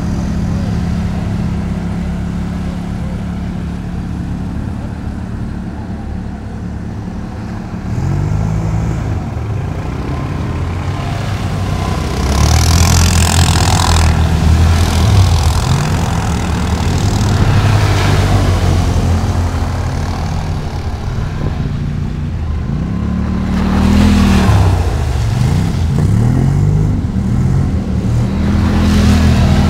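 Quad bike (ATV) engine running and revving up and down as it drives through water, with loud rushing splashes of spray, the biggest about thirteen seconds in and more near eighteen and twenty-four seconds.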